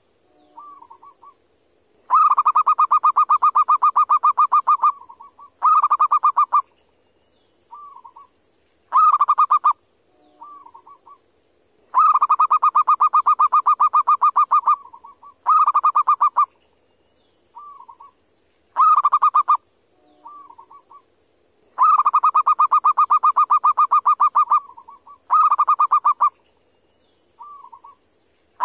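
Wild zebra dove (perkutut) calling with fast, stuttering, pulsed coos. Long runs of about three seconds alternate with shorter bursts and soft single notes, and the pattern repeats roughly every ten seconds over a steady high hiss.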